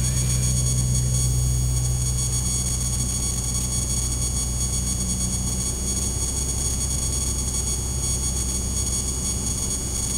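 Light aircraft's piston engine and propeller droning steadily, heard inside the cabin on approach. The low engine note eases a little about halfway through.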